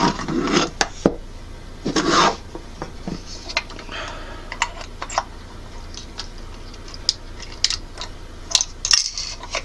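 Handling noise: scattered small clicks, taps and rubbing of hard objects being handled, with a couple of louder rustles in the first few seconds, over a steady low hum.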